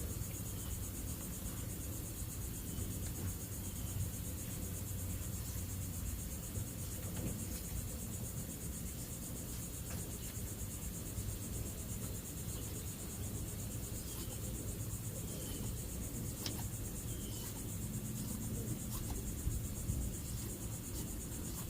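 Crickets chirping steadily in a high, fast pulsing trill, over a low steady hum, with a few faint ticks.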